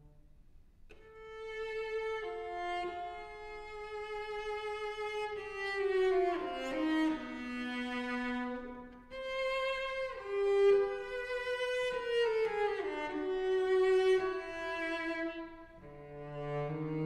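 Cello playing a slow, sustained melody in its upper register, the phrase starting after a brief pause about a second in.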